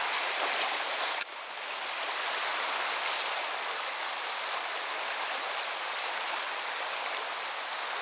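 Fast river current rushing, a steady wash of water noise, with one sharp click about a second in.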